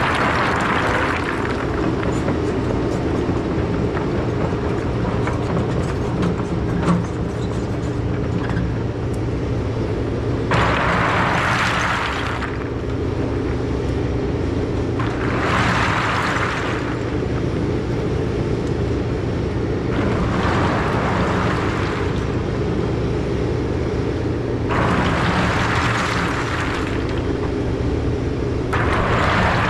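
Takeuchi TB2150 excavator running steadily at working speed, with about six bursts of hiss a second or two long at irregular intervals and a single small knock near the start.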